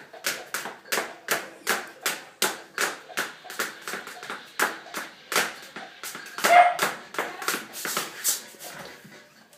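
Rhythmic claps and tap steps on a hard floor: a steady beat of sharp hits, about two and a half a second. A short, louder voice sound comes about six and a half seconds in.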